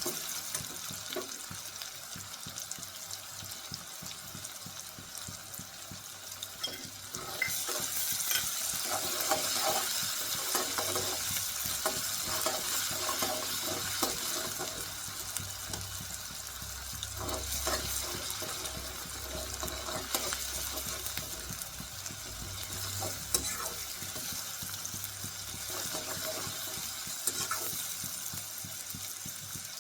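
Shredded cabbage sizzling in oil as it is stir-fried, with a spatula scraping and clicking against the pan. The sizzle gets louder about seven seconds in.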